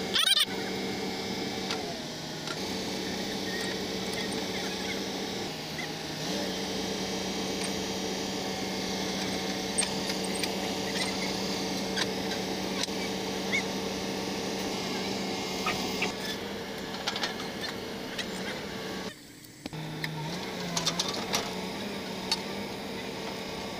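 Caterpillar 320D2 excavator's diesel engine running at a steady idle hum that dips in pitch briefly a few times, while track links and steel tools clink and knock now and then as the track chain is fitted.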